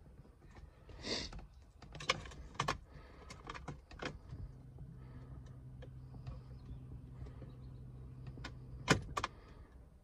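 Car ignition key turning and jangling, with several sharp clicks from the ignition switch and relays as the BMW E39's dashboard electrics power up. A steady low electrical hum starts about four and a half seconds in and stops with a loud click near the end as the ignition is switched off.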